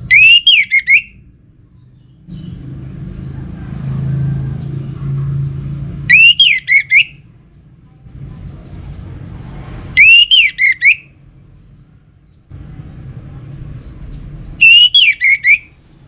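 Orange-headed thrush singing: four short, loud phrases of quick whistled notes that rise and fall, each about a second long and a few seconds apart. A low rumble runs between the phrases.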